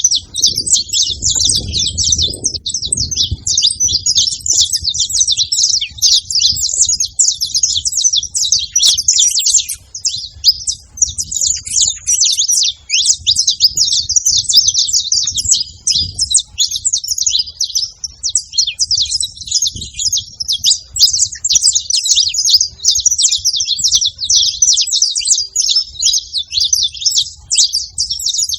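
Saffron finches chirping continuously, with many short, overlapping calls, like a flock chattering together at a feeding spot.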